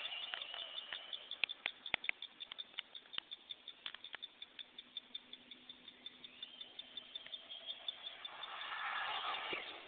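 Faint, rapid, even ticking with a few sharper clicks, then, from about two-thirds of the way in, the whir of a Traxxas Slash VXL RC truck's brushless motor and tyres growing louder as it drives back toward the listener.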